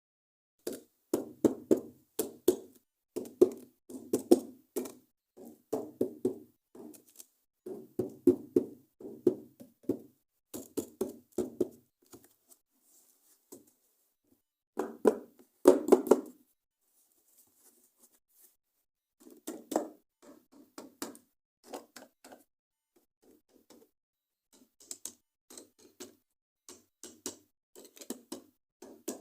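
Hands tapping and handling toys and their packaging: irregular clusters of quick knocks and taps, several a second, broken by short pauses.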